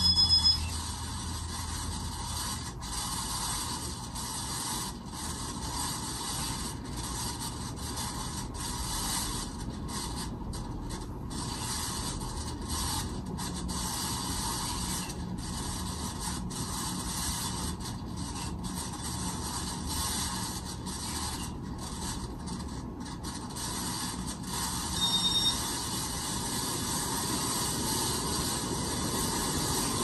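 Ceiling fan running with badly worn bearings, making a steady grinding, rubbing noise. Two brief, louder high-pitched tones stand out: one at the very start and one about 25 seconds in.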